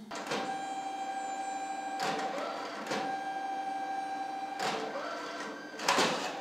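Photo printer running as it prints a photo booth print: a steady motor whine made of several fixed tones, with louder rasping surges about two and three seconds in and again near the end.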